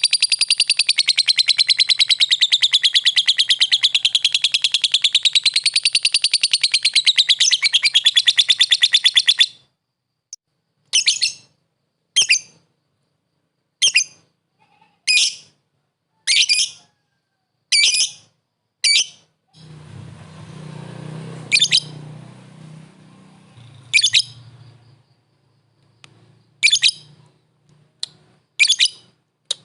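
Lovebird calling to a rival: a rapid, unbroken chattering trill that wavers in pitch for about the first nine seconds, then single sharp, shrill calls about every second. A low rumbling noise sits under the calls for a few seconds about two-thirds of the way through.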